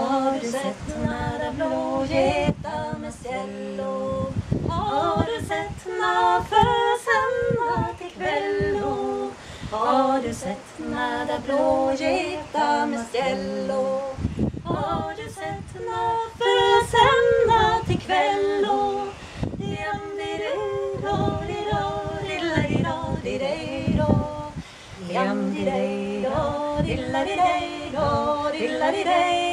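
A woman singing unaccompanied, in phrases of long held notes with short breaks between them.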